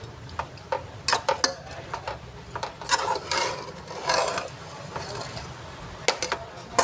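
Metal spatula stirring pieces of pork offal in thick sauce in a pot, with irregular clicks and knocks of metal on the pot and a couple of longer scraping strokes about three and four seconds in.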